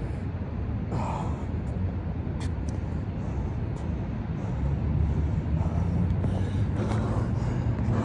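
A person breathing hard in short bursts during a bodyweight workout, over a steady low rumble.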